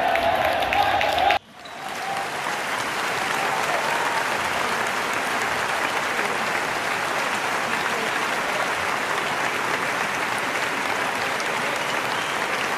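A crowd applauding: steady clapping that starts abruptly about a second and a half in and keeps an even level.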